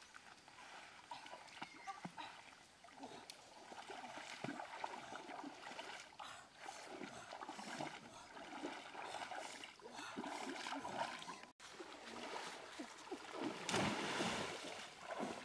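Water splashing as people wade through a shallow river, with a louder rush of splashing near the end as a woven bamboo fish trap is plunged down into the water.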